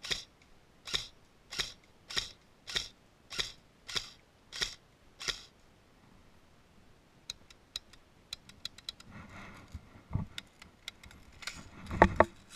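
AK-style airsoft gun firing semi-automatic: about nine sharp shots, evenly spaced a little over half a second apart, stopping about five seconds in. After a pause come a quick run of light clicks and handling noise, with a louder knock near the end.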